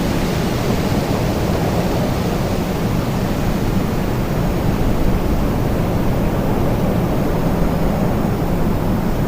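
Wind blowing steadily, a dense even rush heaviest in the low range.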